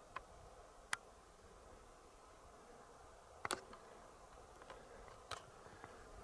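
Quiet background with a few sharp, scattered clicks or taps, the loudest about a second in and a quick double one about halfway through.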